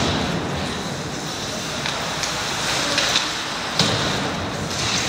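Ice hockey play: skate blades scraping and carving the ice under a steady hiss, with a few sharp clacks of sticks, puck and boards in the second half, the loudest a little before four seconds in.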